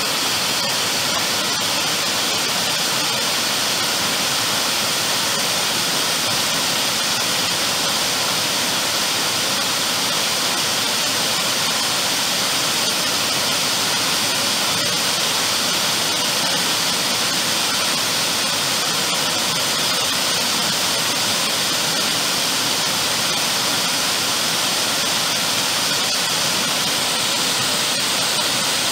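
Waterfall rushing steadily down a rocky gorge, a constant roar of falling water.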